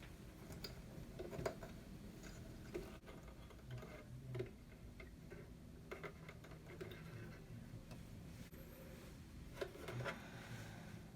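Faint, scattered clicks and light knocks of hands handling a Singer Cosplay sewing machine during set-up and threading, a few at a time with quiet gaps between.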